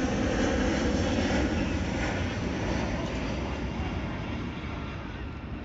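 Aircraft engines passing overhead: a steady rumble with a hiss that slowly fades.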